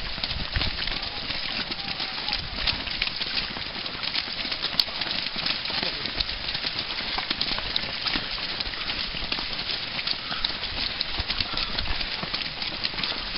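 Footsteps of many fell runners going past on a rough moorland path, a continuous run of overlapping footfalls with grass and heather rustling.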